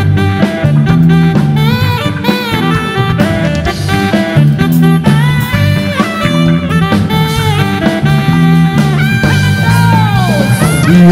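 Live band playing at full volume: electric guitar and keyboard over a bass line and drum kit, with a few notes sliding down in pitch near the end.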